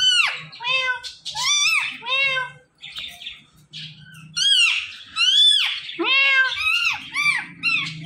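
Indian ringneck parrot giving a quick series of shrill squawks, about a dozen, each rising and then dropping in pitch, with a short lull about three seconds in.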